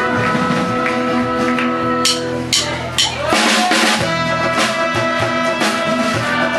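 Live band playing, with held instrument tones under a drum kit. About two seconds in the drummer strikes three sharp hits half a second apart, then a wash of cymbal, and the band carries on.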